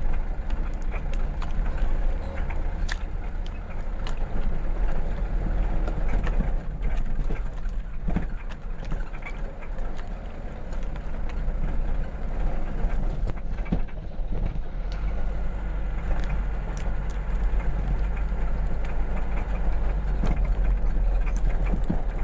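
Vehicle running along a dusty road under repair: a steady low rumble of engine and road noise, with scattered short knocks and rattles.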